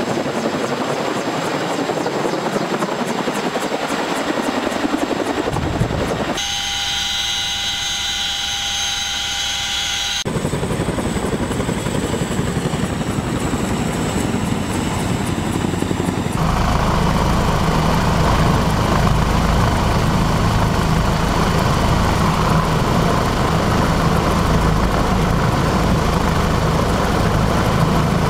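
Helicopter rotor and turbine noise in several cut-together takes. A CH-47 Chinook's tandem rotors beat rapidly overhead, then a stretch with a strong high turbine whine, then a Chinook landing. From about 16 seconds in there is a louder, steady low rumble inside a helicopter cockpit.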